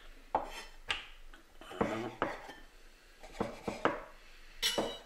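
Kitchen knife knocking and scraping against a bamboo cutting board while thin slices are cut from a salt-cured beef fillet: a series of short, sharp knocks at uneven intervals, the loudest near the end.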